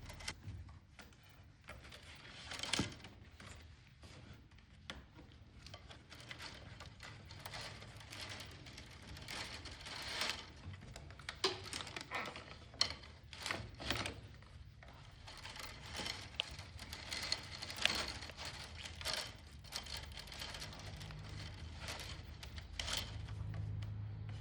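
Rattan cane being woven onto a wooden bench frame: irregular light clicks, taps and scraping rustles as the cane is pulled through and pressed into place.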